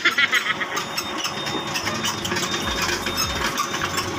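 Yanmar ViO55 mini excavator's diesel engine running, with a steady metallic clinking rattle.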